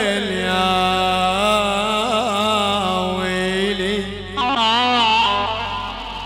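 Middle Eastern music from a live band: a held melodic line, ornamented with quick wavering trills, over a steady low drone, with a short break about four seconds in.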